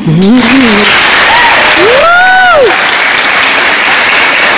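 Audience applauding and cheering at the end of a solo acoustic guitar song, with a long rising-and-falling whoop about two seconds in.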